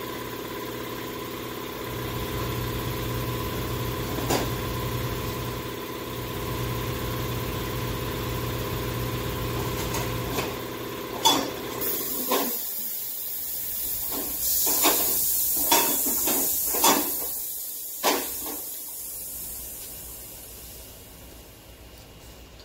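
A steady machine hum that cuts off about twelve seconds in, followed by a high hiss of escaping gas or air with several sharp metallic clanks, the hiss fading out near the end.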